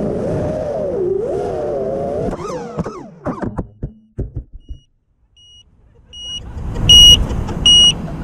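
Racing quadcopter's four brushless motors (Emax 2306 2600kv on 5-inch props) whining in flight, heard from the onboard camera. About two and a half seconds in, the pitch swings and breaks up as the quad hits the ground and the motors cut out. After a short near-silence, the quad's beeper beeps about once every 0.75 s, loud from about seven seconds in, over a rising wash of noise.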